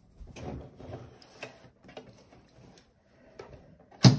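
Scattered light clicks, knocks and rustles of someone moving about and handling things, with one loud sharp click about four seconds in.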